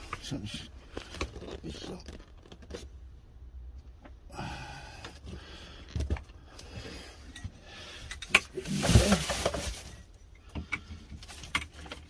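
Parts of greenhouse shelving being handled and fitted together: scattered clicks, knocks and light rattles, with a louder scrape and rustle after a sharp click about eight and a half seconds in.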